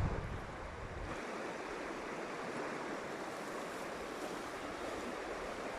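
Fast-flowing river water rushing steadily. Wind buffets the microphone for about the first second.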